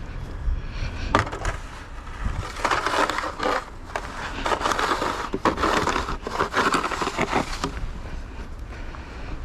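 Snow crunching and scraping in irregular bursts, heaviest from about two and a half to seven and a half seconds in, over a low rumble.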